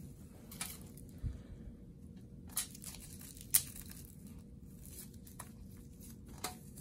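Sterile medical supply wrappers of paper and plastic being torn open and crinkled. Several short sharp crackles, the loudest about three and a half seconds in.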